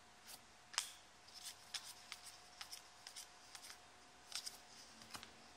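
Faint clicks and soft rubbing of trading cards being slid one behind another in the hand, about a dozen light snaps spread through, the sharpest about a second in.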